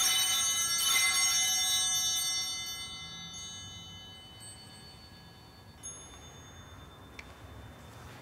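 Altar bell rung at the elevation of the host and chalice: a ringing that fades away over about four seconds, struck again about a second in, with a faint small ring near the end.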